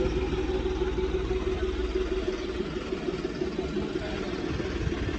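A steady, even hum with a low rumble underneath and a wash of outdoor background noise; no single sound stands out.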